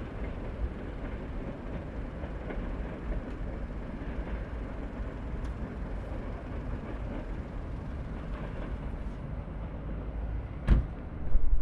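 Low, steady rumble of a train running in the distance along the line. Near the end a sudden thump, then a burst of louder low noise.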